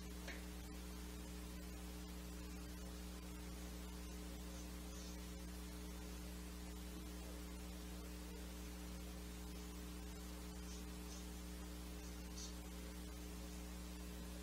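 Steady electrical mains hum, with a few faint, short scratches of a watercolour paintbrush on paper.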